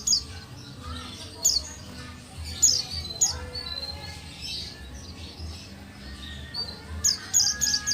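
Female white-eye (pleci buxtoni) calling: short, sharp high-pitched chirps in quick clusters, several times, over a low background hum.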